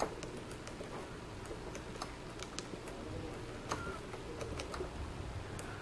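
Thumb-typing on a BlackBerry smartphone's small QWERTY keypad: faint, irregular plastic key clicks as a text message is entered.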